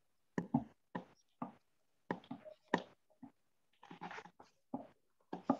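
Marker pen writing on a whiteboard: a run of short, separate strokes.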